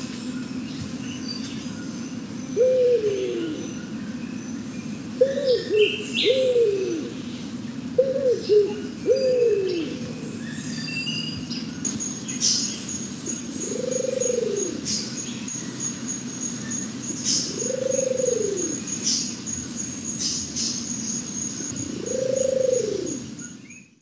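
Scaly-naped pigeon cooing: deep, arching coos, first in quick pairs and then single, longer coos about every four seconds, the call heard as "Who are you?". Faint high chirping and ticking run behind it.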